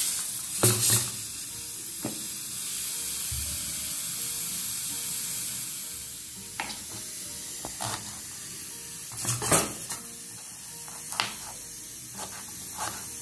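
Steady hiss of steam from the cooking, easing a little about halfway, with scattered sharp knocks and clicks as the pressure cooker is handled and onions are cut with a knife on a plastic chopping board.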